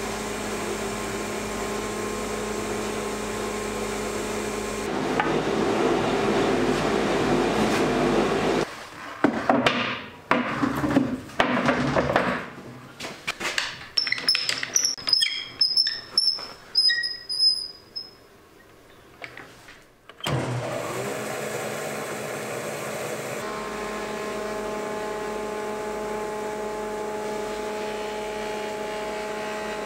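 Sedgwick planer-thicknesser running with a steady hum, its cutting noise rising for a few seconds while a black walnut slab is worked on it. A stretch of short knocks and handling noises follows, and after about twenty seconds the machine is switched on and runs steadily again.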